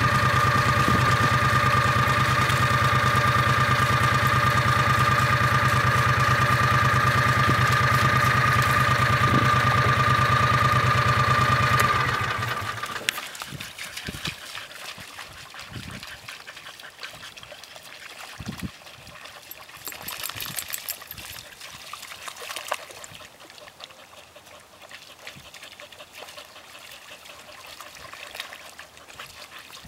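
A steady engine drone with a fixed whine runs for about the first twelve seconds, then drops away quickly. After that, dogs wading and splashing in a shallow puddle, with small splashes and water trickling.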